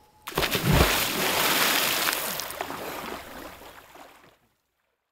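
A person diving into a lake: a sudden splash about half a second in, then a wash of water noise that fades away over about four seconds.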